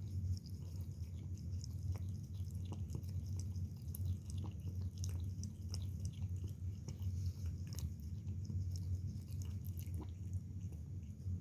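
A cat chewing and biting close to the microphone: many small irregular clicks and crunches over a steady low hum.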